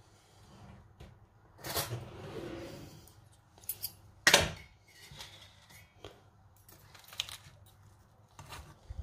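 Scattered clicks, taps and rustles of metal forks being handled, with one sharp clack about four seconds in; near the end the forks dig into and pull apart roasted chicken legs in an air fryer basket.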